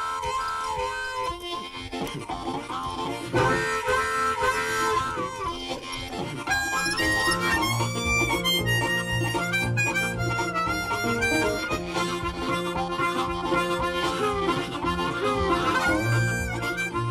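Background music with a harmonica carrying the melody over a steady bass line.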